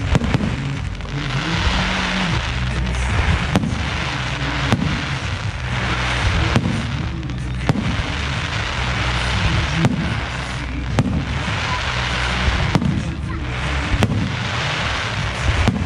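Aerial fireworks bursting: sharp bangs about once a second over a continuous noisy wash of crackle.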